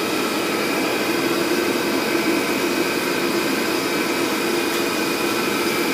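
Steady mechanical roar from stall kitchen equipment, with a few faint, steady whining tones above it, unchanging throughout.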